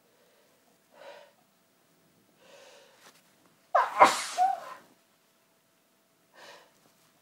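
A woman's forceful sneeze about four seconds in, after two short breaths as it builds; another short breath comes near the end.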